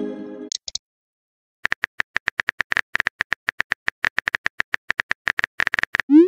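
Rapid keyboard typing clicks from a texting app's on-screen keyboard, about eight a second for around four seconds, as a message is typed out. A short chiming message tone sounds at the very start, and a quick rising swoosh comes right at the end.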